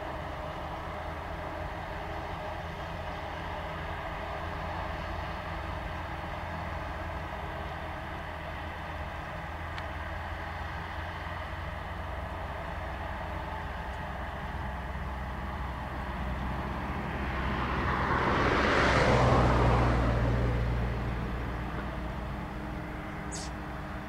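Claas self-propelled forage harvester and tractors running at a distance while chopping maize, a steady engine drone. A vehicle passes close by, swelling and fading, loudest about three-quarters of the way in.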